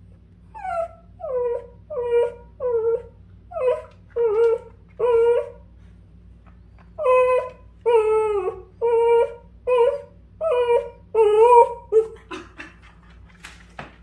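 A long-haired dachshund whining over and over in short, high cries, many of them dropping in pitch. There are two runs of about six whines each, with a short pause between them.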